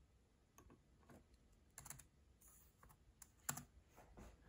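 Faint, irregular key presses on a laptop keyboard: a scattered run of light clicks, the sharpest about three and a half seconds in.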